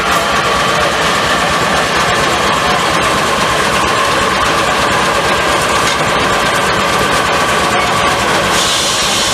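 Steam-powered sawmill running: loud, steady machinery with a rapid clatter underneath and a steady whine, changing slightly near the end.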